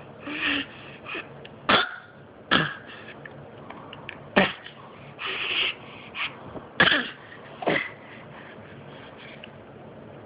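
A series of coughs: about five sharp, hacking coughs spread over several seconds, with softer, breathy rasps between them.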